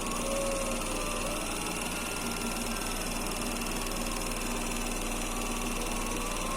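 Opel Zafira's electro-hydraulic power steering pump whining over the idling engine. It gives a steady hum, with a higher whine that rises and falls briefly just after the start and again at the very end as the steering is turned. By the owner's account, the pump noise carries on after the steering stops moving.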